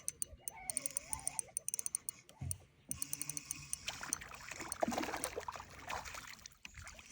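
Water splashing and sloshing as a small smallmouth bass is reeled in at the surface, after a run of quick light clicks in the first few seconds.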